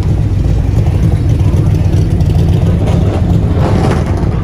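Cobra-replica roadster's engine running loud and deep through its side-exit exhaust pipes as the car drives slowly past at low speed.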